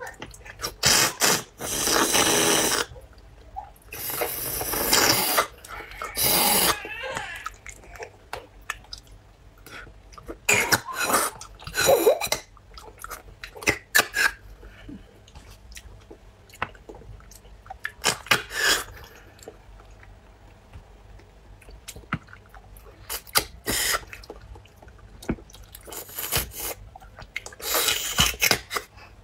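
A person sucking and slurping marrow out of braised pork bone sections, in repeated loud wet bursts of a second or two, with small wet mouth clicks between.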